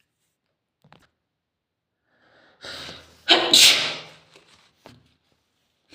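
A person sneezes once, loudly, about three seconds in, after a short breath building up to it.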